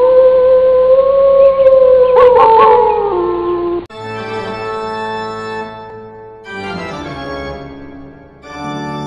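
A single long wolf howl that rises at the start, holds and drops in pitch near its end, breaking off about four seconds in. It is followed by organ music in slow, sustained chords that change twice.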